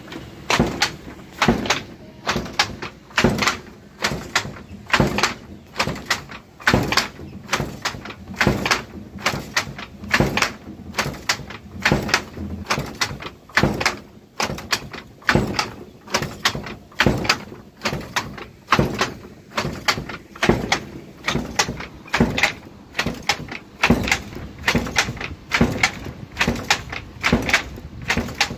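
Wooden handloom being worked: the shuttle and beater knock in a steady rhythm, about one sharp clack a second, sometimes doubled, as each weft thread is beaten into the cloth.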